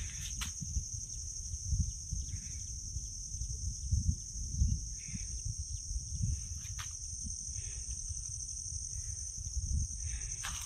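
A steady, high-pitched insect chorus drones without a break, over an uneven low rumble of wind on the microphone.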